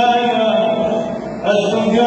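A man chanting the Quran in a melodic recitation style, holding out long, drawn-out notes. The voice eases and drops briefly near the middle, then picks up again at full strength about one and a half seconds in.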